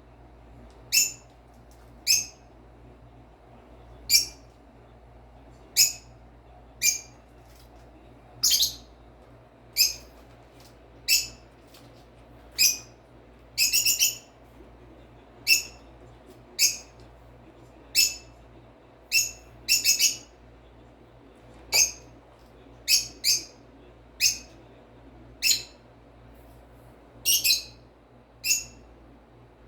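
Pet parrot giving short, sharp, high chirps, about one a second, sometimes two or three in quick succession.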